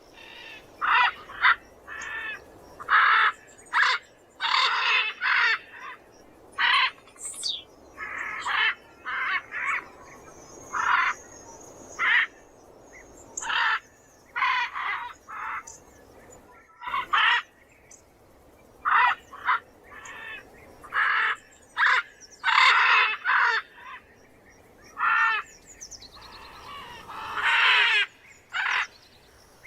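Macaw squawking: a long run of short, loud, harsh calls at uneven intervals, some coming in quick pairs.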